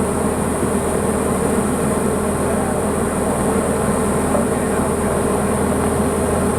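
Steady drone of a Diamond DA40's piston engine and propeller heard from inside the cockpit, running at a constant power setting with no change in pitch.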